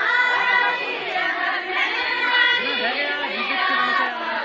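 A group of villagers, many voices together, singing a Kumaoni jhoda folk song in held, chanted phrases for the circle dance.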